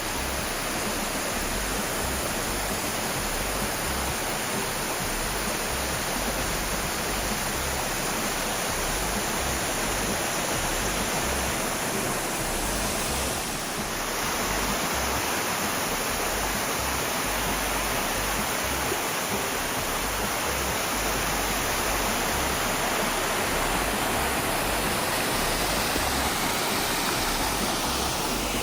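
Waterfall: a steady, even rush of falling water, dipping briefly about halfway through.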